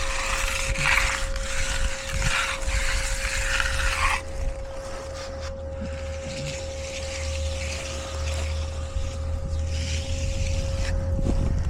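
A machine running steadily, with a low rumble and a constant mid-pitched hum. A rough hiss is strong over the first four seconds, then fainter.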